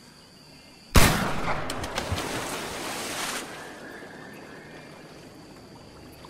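A single loud gunshot from a long gun about a second in, its noisy tail dying away over about two and a half seconds.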